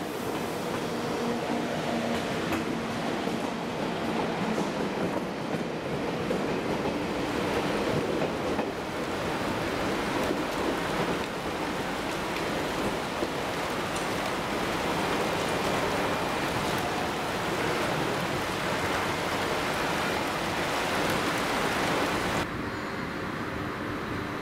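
TGV high-speed trains moving slowly through a station, giving a steady noise of wheels on rails and running gear with a faint hum. About two seconds before the end it drops abruptly to a quieter rumble.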